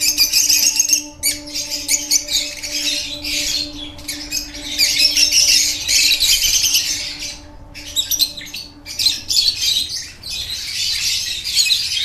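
Lovebirds chattering and squawking: a dense, high-pitched run of quick calls with a few short breaks. A faint steady hum lies under it.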